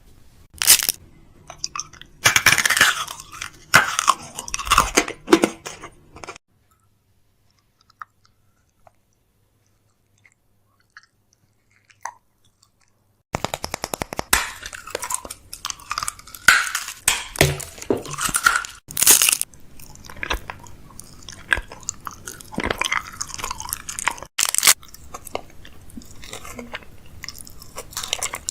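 Groceries and containers being handled and packed into a fridge: a busy run of sharp knocks, clatters and rustling. It breaks off at about six seconds, stays near silent for about seven seconds, then starts again.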